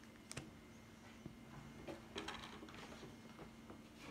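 Faint handling noises over a low steady room hum: a single light tap about a third of a second in, then a short cluster of small clicks and rustles about two seconds in, as a pin in a clear plastic sleeve is handled and set down.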